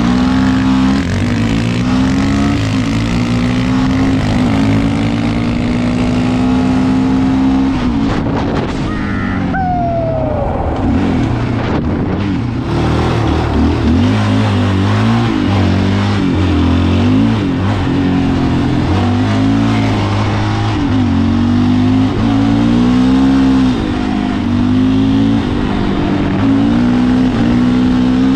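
Sport quad's single-cylinder engine under way, revving up and dropping back again and again as the rider accelerates and shifts. It eases off for a few seconds about a third of the way in, then pulls hard again.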